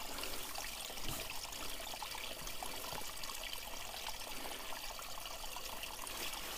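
Spring water trickling steadily out of a hole in the ground.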